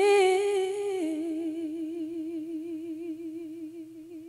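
A singer in a slow song holds the last note of a line with steady vibrato, stepping down a little about a second in and slowly fading out.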